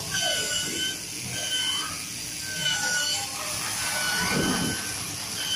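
Digital fabric cutting machine's gantry and cutting head moving as it cuts, its drive motors giving a string of short, steady high whines, one longer about two-thirds through, over a steady hiss.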